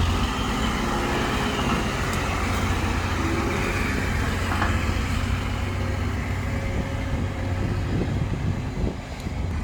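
Heavy diesel engine running steadily under load, dipping briefly near the end.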